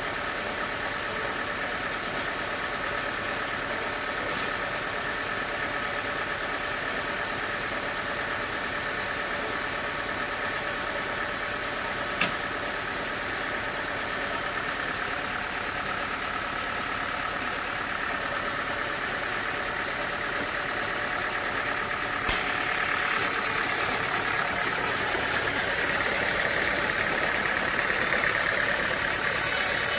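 Sawmill machinery running steadily, with a constant hum and whine. There are two sharp knocks, about twelve and twenty-two seconds in, and the sound grows a little louder in the last few seconds.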